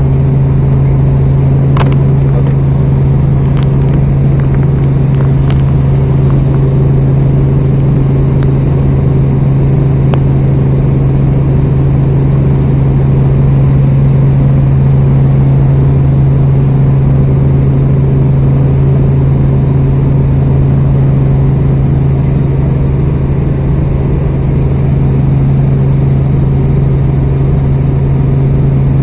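Helicopter in flight: a loud, steady drone dominated by one strong low hum, with a few faint clicks in the first six seconds.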